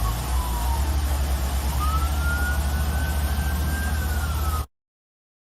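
Emergency vehicle siren wailing, its pitch sliding slowly down, then sweeping back up about two seconds in, over a heavy low rumble; the sound cuts off abruptly near the end.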